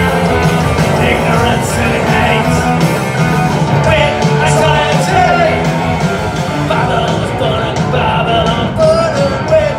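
Live rock band playing a song at full volume: electric guitars, bass and drums with a sung vocal.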